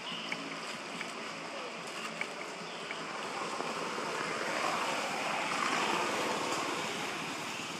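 Steady rushing outdoor noise that swells a little about halfway through, with a few faint ticks.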